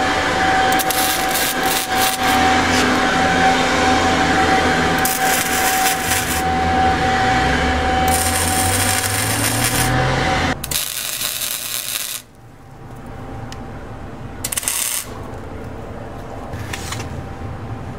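Angle grinder running on steel, grinding notches into the truck rack's bed posts, with a steady high whine for about ten seconds. It stops, and after a loud hiss come a few short bursts of MIG tack welding.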